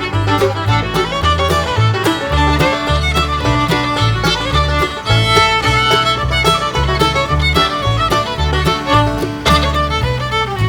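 Upbeat bluegrass background music: fiddle over plucked banjo and guitar, with a bouncing bass line and a steady beat.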